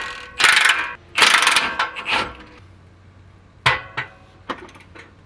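Milwaukee cordless power tool running in short, loud bursts on the exhaust H-pipe nuts, the steel pipe ringing with each burst. This is followed a couple of seconds later by lighter metallic clicks and taps of a hand wrench on a stubborn nut.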